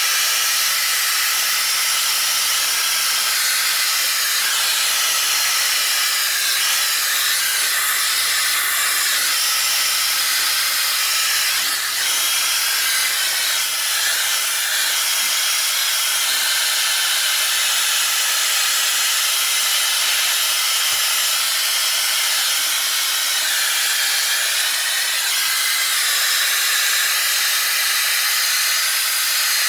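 Loud, steady hissing noise with no rhythm or change.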